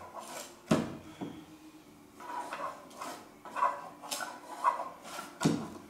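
Light, irregular clicks and knocks of hands working among the wooden pallets and wire pull-downs under a pipe organ's swell soundboard, checking them for debris. About six small knocks, the sharpest about a second in.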